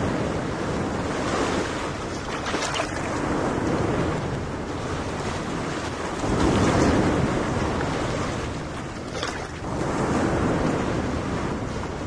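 Small waves washing onto a sandy beach, swelling and easing every few seconds, loudest about six and a half seconds in and again around ten seconds. Wind buffets the microphone underneath.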